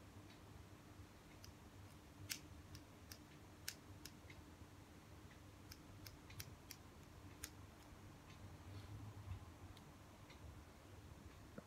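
Faint, irregular snips of orange-handled scissors cutting hair, a dozen or so short sharp clicks, the loudest about two and a half seconds in.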